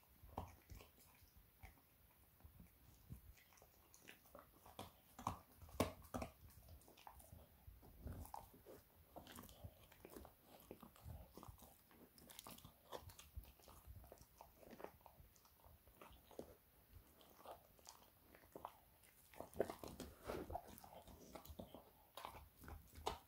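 A dog chewing and gnawing on a chew with irregular crunching bites, busiest about five to six seconds in and again near the end.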